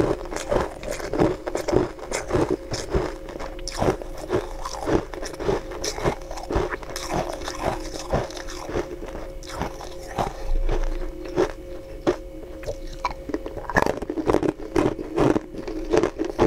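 Hard ice being bitten and chewed close to the mouth: many sharp crunches and cracks in quick, irregular succession.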